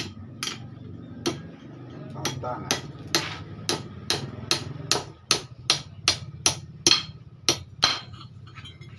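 Hammer striking a steel bar on a steel anvil block: about twenty sharp metallic blows, a few spaced out at first, then coming quickly at two to three a second, stopping shortly before the end.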